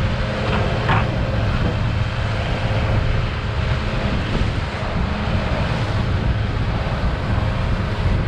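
Outboard motor pushing a fishing boat at speed, a steady low drone under heavy wind buffeting on the microphone and the rush of the wake.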